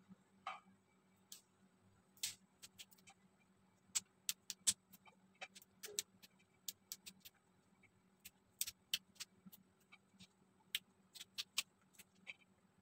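String beans (sitaw) being snapped into pieces by hand: a run of sharp, irregular snaps, sometimes in quick pairs, with short pauses between.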